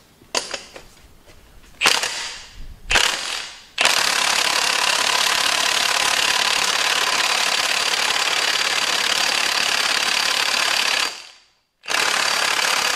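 Impact wrench hammering on the chipper's clutch hub. It gives a few short bursts, then runs continuously for about seven seconds, stops abruptly, and starts again for another second or two near the end.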